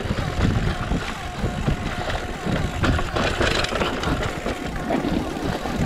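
Mountain bike on a fast downhill descent: a continuous uneven rumble from tyres and frame over rough ground, with many small rattles and knocks.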